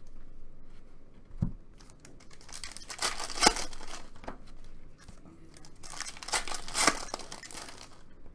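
Foil trading card pack wrappers being torn open and crinkled by hand, in two louder bursts about three and six seconds in, with short clicks of cards being handled in between.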